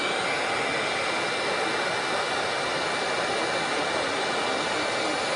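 Handheld electric heat gun running steadily: an even rush of blown air with a steady high whine from its fan motor.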